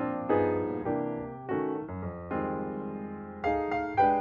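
Background piano music: gentle chords and a melody, each note struck and then fading, with a new chord about every second.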